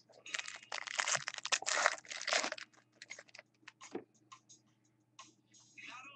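Crinkling of a foil trading-card pack wrapper being handled for about two seconds, followed by a few light clicks and taps as cards are handled on a table.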